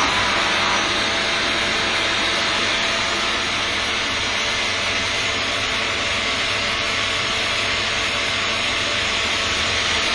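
Steady hissing machinery noise, even and unbroken, with a faint steady tone beneath it.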